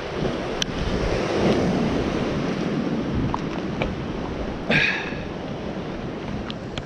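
Ocean surf washing against a rocky shore, with wind on the microphone. A few short clicks sound through it, and there is a brief scrape just before five seconds in.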